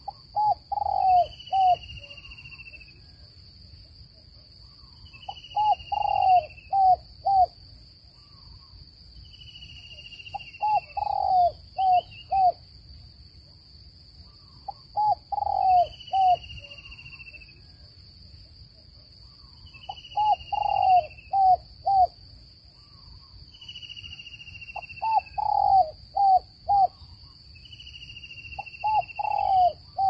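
Spotted dove cooing, a phrase of four or five short coos repeated about every five seconds. A thin falling whistle sounds over each phrase, and a steady high whine runs underneath.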